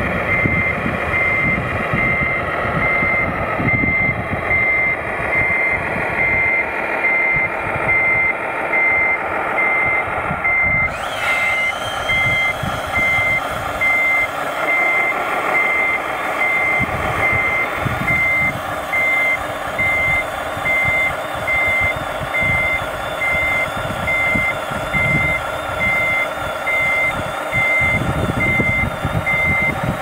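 Steady, evenly spaced high reversing beeps from an RC Mercedes-Benz Actros tipper truck's sound module, over its simulated diesel engine sound. A thin whine joins about eleven seconds in.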